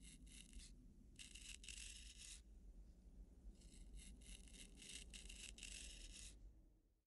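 Faint scraping strokes in three runs, each a second or more of quick rasping passes: a straight razor shaving stubble.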